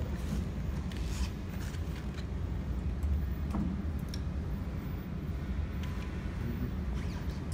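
Steady low machine hum, with a few faint clicks and taps from a binocular microscope head being handled and seated on a YAG laser welding machine.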